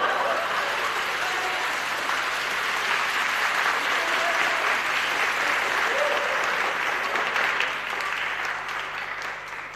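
A studio audience applauding. It starts suddenly, holds steady and dies down near the end.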